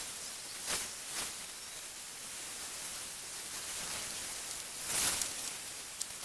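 Steady hissing noise with a few short swells, about a second in and again around five seconds, and a single sharp click near the end.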